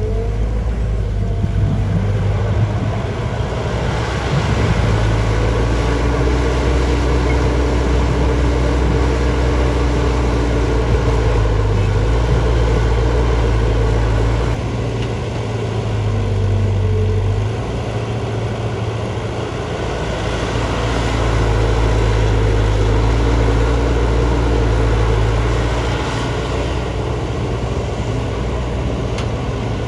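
JCB JS205 tracked excavator's diesel engine running, its loudness rising and falling as the load changes. It dips briefly about halfway through, picks up again, and eases off near the end.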